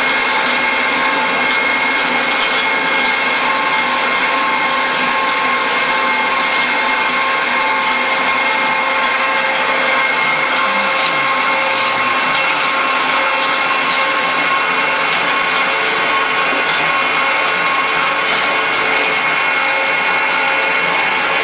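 SKJ200 sawdust pellet mill running steadily: a constant mechanical whir with a steady high whine and a few faint ticks.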